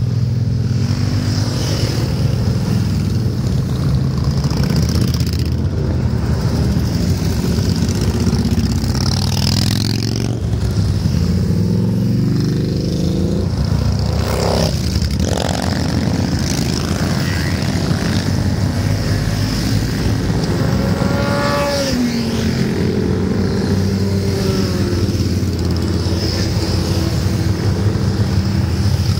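A long column of motorcycles riding past one after another: cruisers, touring bikes and scooters running together in a continuous engine rumble, with individual bikes' engine notes falling in pitch as they pass close by, several times.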